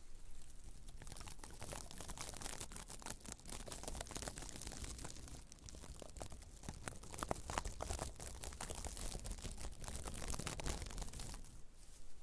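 A bundle of glittery tinsel stems rustled and squeezed close to the microphones, giving dense crinkly rustling with fine crackles. It builds up about a second in and dies down near the end.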